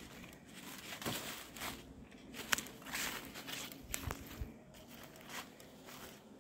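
Footsteps crunching and crackling on a trail, uneven steps with a few sharper snaps.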